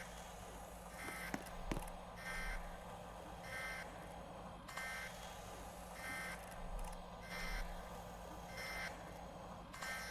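A faint, short beep repeating about every second, over a low steady hum.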